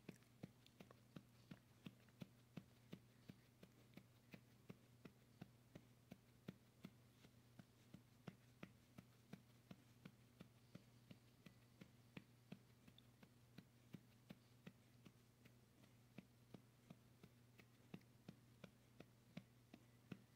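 Faint, soft pats on a baby's back to bring up a burp, about two to three a second, steady throughout, over a low steady hum.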